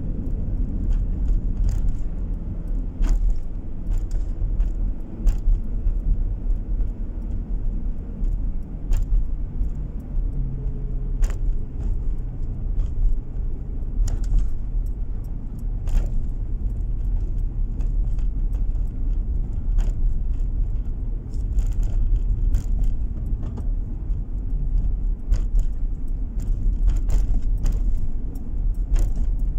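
A moving car heard from inside the cabin: a steady low rumble of engine and tyres on the road, with frequent small clicks and rattles at irregular moments.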